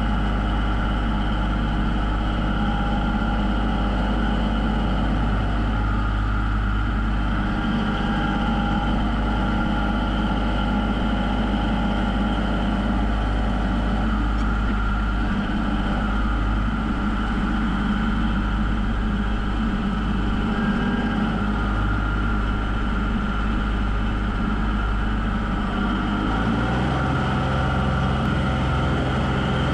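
Tractor engine running steadily while the tractor carries a load on its front-loader pallet forks; near the end its speed steps up.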